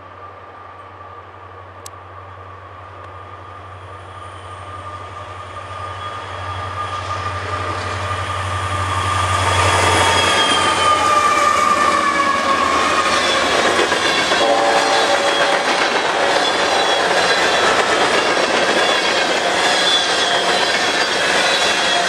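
An EMD SD40-2 diesel locomotive with a 16-cylinder 645 engine approaches at speed, its low engine rumble and a steady high whine growing louder. It passes about ten seconds in, the rumble fading out and the whine dropping in pitch. Empty grain hopper cars then roll by, their wheels clattering over the rail joints, with short spells of wheel squeal.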